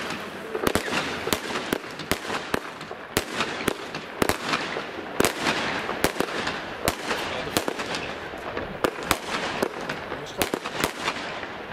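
Fireworks going off in quick succession: an irregular string of sharp bangs and pops, several a second, over a dense hiss.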